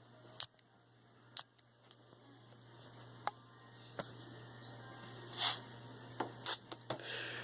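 Handling noise: a few sharp, scattered clicks and a brief rustle, over a faint steady hum.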